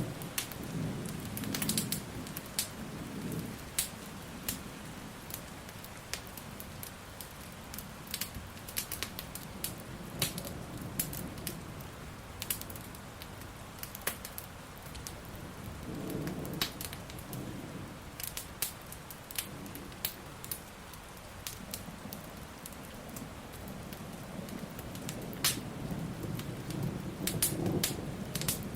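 Steady rain with low rumbles of thunder that swell near the start, midway and toward the end, over a log fire crackling and popping.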